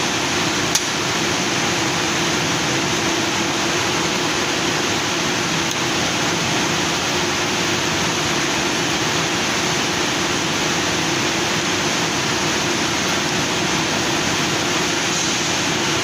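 Steady loud din of running textile-mill machinery, with a low hum under a wide hiss. A single sharp click sounds about a second in, as the red mushroom-head emergency stop button on the machine is pressed.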